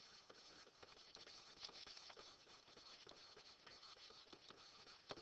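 Near silence with faint taps and scratches of a stylus writing by hand on a screen, a few small ticks among them.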